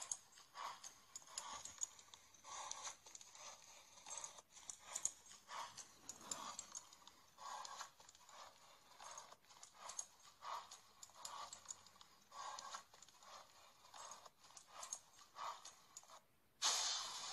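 Sound effects from an augmented-reality card app as an animated winged serpent creature appears: a run of short repeated bursts, roughly one or two a second, that starts suddenly. Near the end it breaks off briefly and a louder, denser sound begins.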